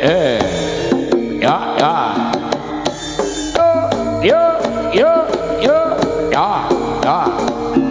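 Jaranan dance music over a sound system: drums beating under repeated held metallic notes, with swooping tones that slide up and down in pitch.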